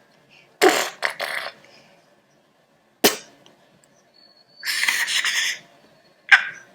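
Mouth-made sound effects: a quick run of short breathy, hissing bursts, a sharp click about three seconds in, a longer hiss around five seconds, and a short burst near the end.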